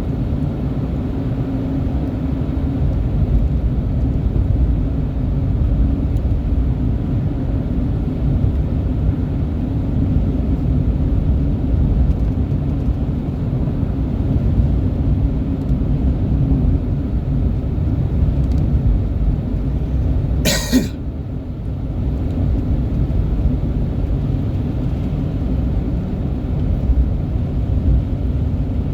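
Engine running steadily with a low rumble. A single short, sharp noise cuts across it about three-quarters of the way through.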